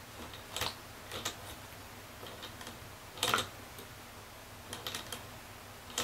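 Guinea pig drinking from a cage water bottle, its licks clicking against the metal spout. Scattered light clicks come at irregular gaps, with the loudest a little past three seconds in.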